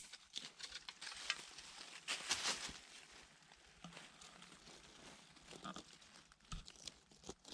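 Irregular scraping and rustling: a stick digging at dry earth and dead leaves around a burrow.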